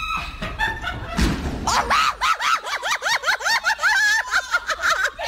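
Children shrieking: after a dull thud about a second in, a fast run of high, rising-and-falling cries, several a second, from about two seconds in.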